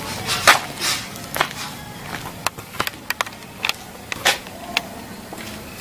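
Irregular light knocks, clicks and scuffs, about a dozen of them unevenly spaced, from a person moving and handling things on a concrete floor.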